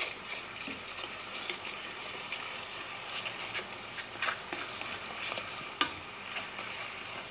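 A spoon stirring and scraping a sizzling onion, barbecue sauce and sugar mixture in a non-stick pot, with frequent light clicks of the spoon against the pan and one sharper knock near the end.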